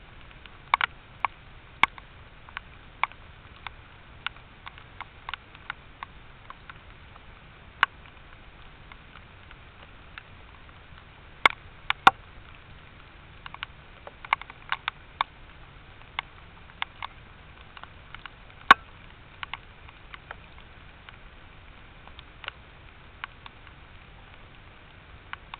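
Raindrops dripping onto the game camera's housing: irregular sharp taps, a few much louder than the rest, over a steady hiss.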